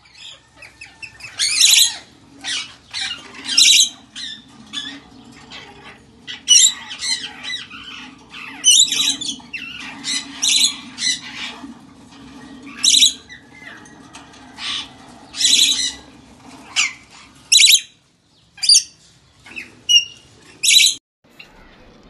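Parrots squawking: loud, harsh screeching calls repeated about once a second, over a faint steady hum.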